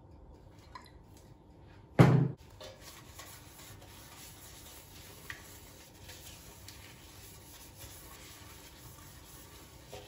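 A glass oil bottle set down on a table with a loud knock about two seconds in, followed by soft rubbing and small scrapes as a paper towel spreads oil around the inside of a loaf pan.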